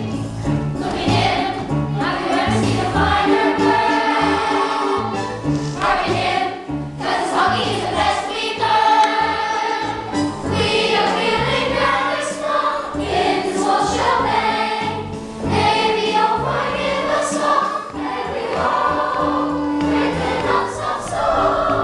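Music with a choir singing over a moving bass line.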